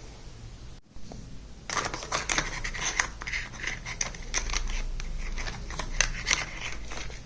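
Small plastic toy kitchen pieces being handled, a quick run of clicks and scratches that starts about two seconds in.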